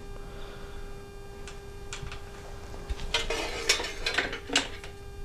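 Light metallic clicks and clinks of small metal brake parts being handled: a few scattered taps, then a quicker run of clinks about three seconds in, over a steady electrical hum.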